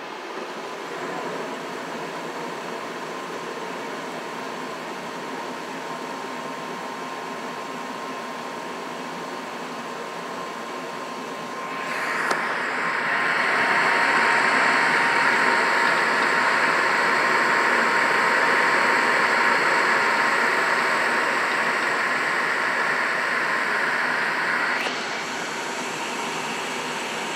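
Trane XB80 gas furnace running in heat mode: a steady airy rush with a faint steady whine. It grows much louder about twelve seconds in, just after a click, and eases somewhat near the end.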